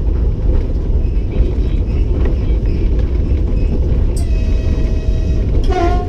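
Cab noise of an EP20 electric locomotive running at high speed: a steady low rumble. About four seconds in, a steady tone sounds for about a second, and a shorter wavering tone follows near the end.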